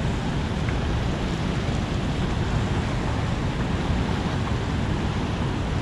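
Steady rush of churning tailwater pouring out of the dam's spillway channel, an even roar of turbulent water.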